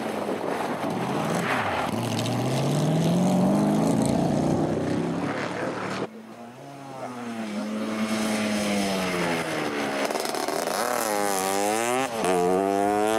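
Open-wheeled single-seater race car accelerating hard through a bend, its engine note rising with the revs. About six seconds in, the sound cuts to a motorcycle coming up the hill, revving up through the gears with the pitch rising and dropping at each change, and getting louder near the end.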